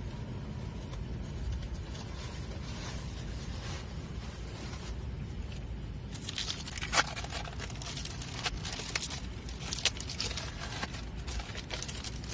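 Steady low rumble of wind on the microphone. From about six seconds in come scattered sharp clicks and rustles of small things being handled at a wooden table.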